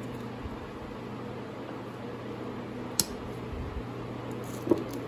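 Two sharp, small metallic clicks, one about three seconds in and one near the end, as a tiny C-clip is worked back onto the governor of a Powerglide automatic transmission, over a steady background hum.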